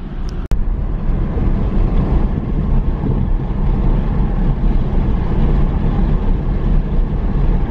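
Steady engine, tyre and wind noise inside a car cruising at about 50 mph, a dense low rumble, with a brief sharp break about half a second in.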